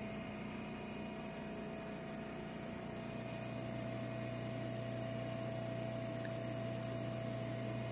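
Home-built micro-hydro plant running: a Marathon 30 kVA three-phase generator direct-driven by Pelton and Turgo turbines, giving a steady mechanical hum over a rushing water noise from the turbine housings. It grows slightly louder about three seconds in.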